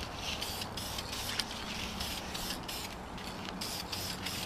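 Aerosol can of self-etching primer hissing in short, repeated bursts as it is sprayed onto a motorcycle wheel's spokes.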